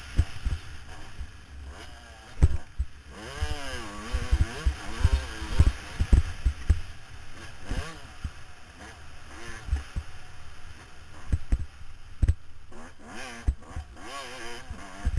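Dirt bike engine heard from the bike itself, revving up and falling back again and again as it is ridden hard around a motocross track. Loud low thumps and buffeting on the microphone run through it.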